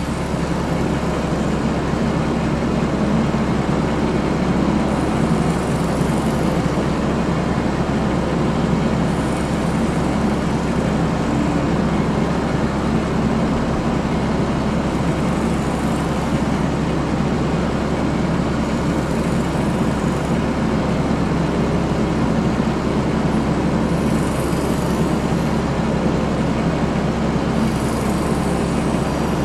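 Sportsman 1000-watt portable generator's small engine running steadily at an even, unchanging pitch.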